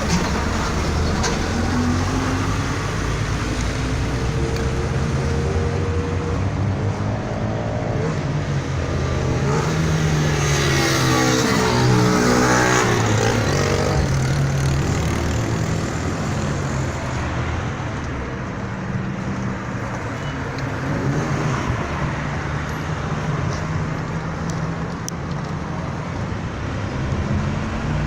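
Road traffic: a steady rumble of passing motor vehicles, with one vehicle going by close about twelve seconds in, its pitch falling as it passes.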